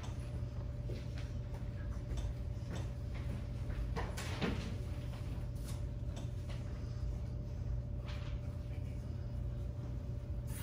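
Room tone of a hall: a steady hum and low rumble, with scattered faint knocks and shuffles. The most noticeable knock comes about four seconds in.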